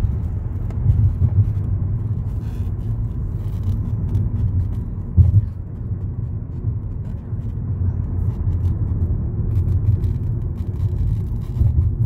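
Car cabin noise while driving: a steady low road rumble from engine and tyres, with a brief thump about five seconds in.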